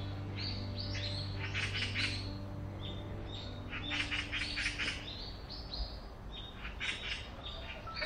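Small songbirds chirping in quick runs of short, high notes, coming in several bouts: about half a second in, around four seconds in, and again near seven seconds.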